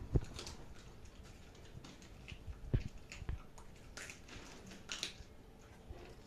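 Siberian husky chewing raw meat with its side teeth: irregular crunches and clicks of the teeth, the sharpest just after the start and a little under three seconds in.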